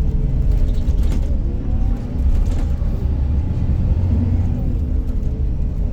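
Interior of an Iveco Crossway Line 12 bus under way: a deep drivetrain rumble with whining tones that rise, dip and rise again as the bus pulls and changes speed, with a few short rattles. The drivetrain sound is altered, which the uploader wonders may be the kickdown.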